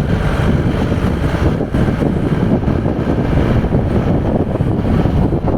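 Steady, loud rumble of wind buffeting the microphone together with the running noise of a moving vehicle.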